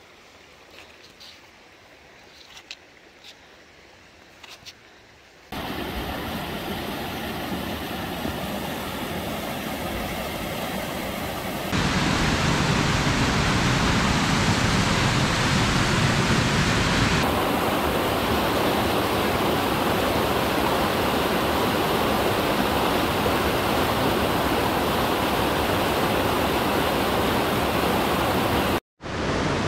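A few faint crunching steps and light clicks on snow, then, about five seconds in, the loud steady rush of a snowmelt creek cascading over rocks. The rush jumps louder about twelve seconds in and cuts out for a moment near the end.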